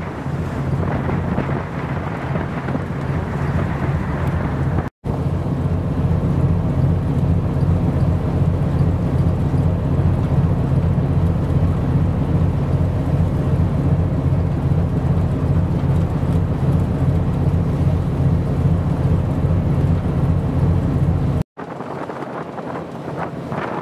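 Strong wind buffeting the microphone, a heavy low rumble over the hiss of a choppy sea. The sound breaks off for an instant about five seconds in and again near the end, after which the low rumble is much weaker.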